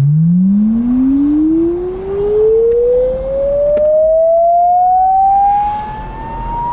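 A single pure electronic tone sweeping slowly and steadily upward in pitch, from a low hum to a high whistle, played loudly: an annoying frequency-sweep sound used as a prank.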